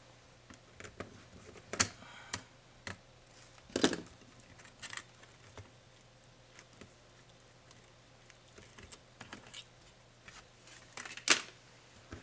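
Scattered sharp clicks and taps of small plastic and metal parts and hand tools being handled while a Lenovo ThinkPad Yoga 260 laptop is disassembled. Louder knocks come about two, four and eleven seconds in, over a faint low hum.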